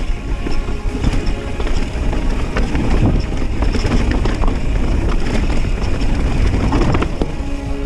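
A mountain bike ridden along a rough dirt trail: wind buffets the microphone, the tyres rumble over the ground, and the bike rattles with short knocks over the bumps.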